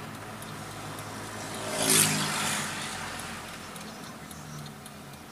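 Volkswagen Voyage's AP engine running while driving, heard from inside the cabin, with a brief loud rush of noise about two seconds in.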